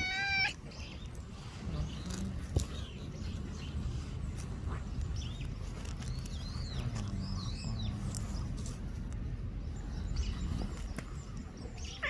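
A young cat's meow ends about half a second in. Then outdoor background noise with a low steady rumble, and faint short bird chirps now and then.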